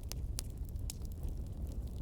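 Wood fire burning in a fireplace, crackling with a handful of sharp, irregular pops over a low, steady rumble of the flames.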